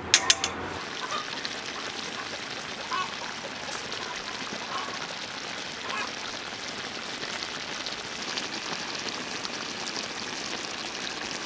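Red-braised pig trotters and tofu skin simmering in a large wok, a steady bubbling hiss full of fine pops. A few quick metal clinks of a utensil against the wok at the very start.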